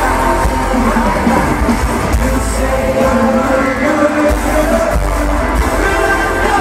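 Live pop band performing in an arena: male voices singing over drums and bass, with the crowd's yells mixed in.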